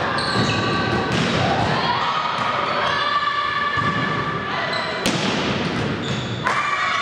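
A volleyball rally in a sports hall: the ball is struck hard a few times with sharp slaps, with players and spectators shouting throughout.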